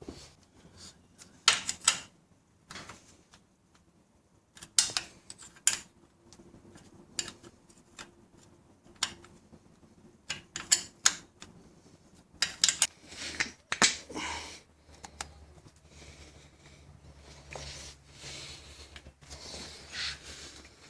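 Hands working an ignition wire and its rubber boot: scattered clicks, taps and short rubbing scrapes in irregular bursts, as the wire end is screwed onto its terminal and the boot pushed into place.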